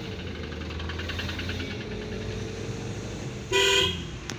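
Road traffic with vehicle engines running steadily, and one short, loud vehicle horn honk about three and a half seconds in.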